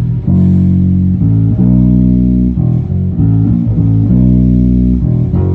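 G&L Fallout short-scale passive electric bass played with its single humbucking pickup wired in series ('Oh my God mode') and the volume rolled back a little: a line of full, held notes with a few quicker notes in the middle.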